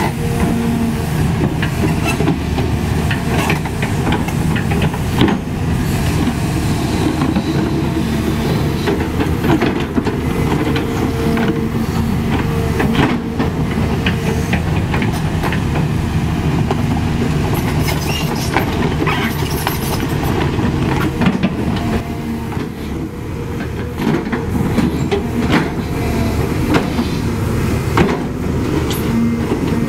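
CAT 320D2 hydraulic excavator's diesel engine running steadily under load, while its steel bucket scrapes and knocks through broken asphalt and dirt in a string of irregular clanks and scrapes.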